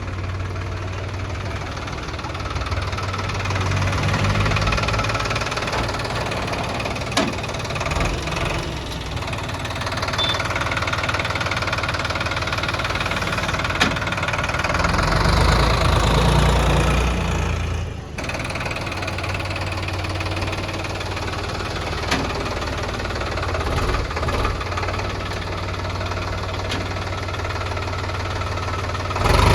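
Heavy diesel engine running steadily, with a few sharp knocks and a louder surge about halfway through.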